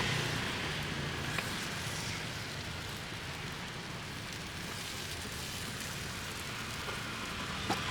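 Mini savory pancakes (bánh khọt) sizzling steadily in hot oil in their pan, with a couple of light clicks.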